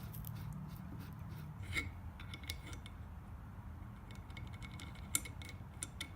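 Scattered light metallic clicks and clinks from the cast-metal parts of a walking sprinkler being handled and turned during reassembly.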